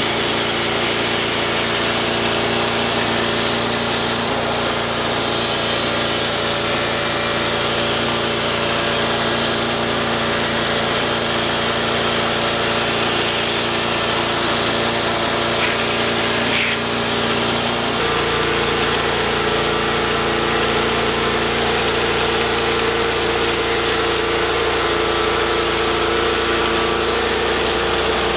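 TimberKing 1220 bandsaw mill running steadily, its band blade cutting through a mesquite log over the engine's steady running. The sound changes abruptly about two-thirds of the way through.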